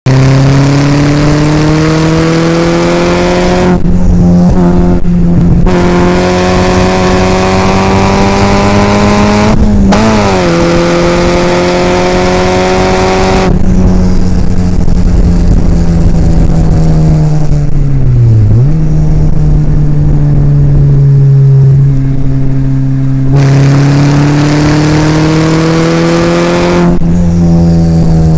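Classic open-top sports car's engine heard from the cockpit at speed on a circuit, its note climbing slowly through each gear and dropping sharply at each of several gear changes.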